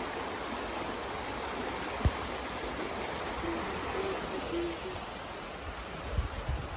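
Steady rushing of a small river flowing in its channel during a snow shower. A single sharp tick comes about two seconds in, a few faint short low hoots follow a little past the middle, and low thumps on the microphone begin near the end.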